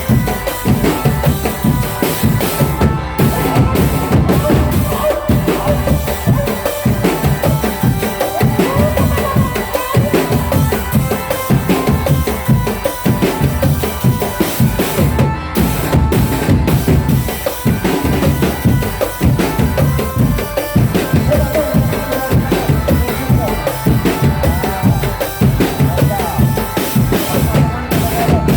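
Drumband, a marching percussion band, playing: bass drums and snare drums beating a fast, steady rhythm without a break.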